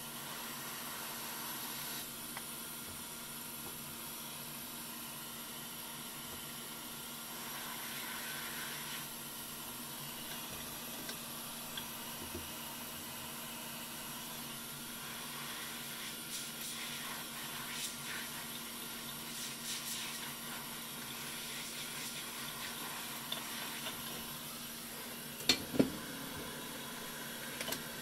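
Hot air station blowing a steady airy hiss with a faint hum underneath. A few light handling clicks, and two sharper knocks close together near the end.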